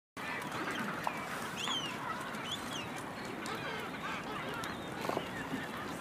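Adélie penguins calling in a colony: many overlapping high, short calls that rise and fall over a steady din, starting abruptly just after the start. Among them is a downy chick begging its parent for food.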